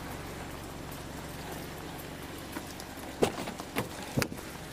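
Footsteps and a few sharp knocks and clicks of gear, heard through a body-worn camera, over a steady low background hum. The knocks come bunched together about three to four seconds in.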